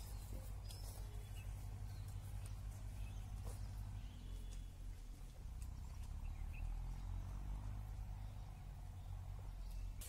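Outdoor field ambience: a steady low rumble with a few faint, short bird chirps scattered through it.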